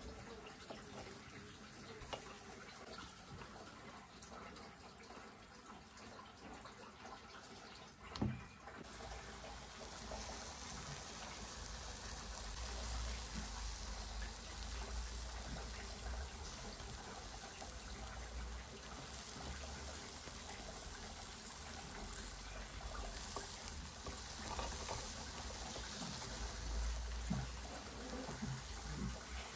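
Chicken tikka pieces on metal skewers sizzling over a charcoal barbecue, a steady crackling hiss, with a light clink of the skewers being turned near the start. About eight seconds in a sharp knock comes, and after it a low rumble joins the sizzle.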